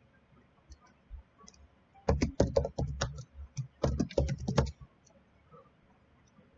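Computer keyboard keys clicking as a command is typed: two quick runs of keystrokes, the first about two seconds in and the second just under four seconds in, with a short pause between them.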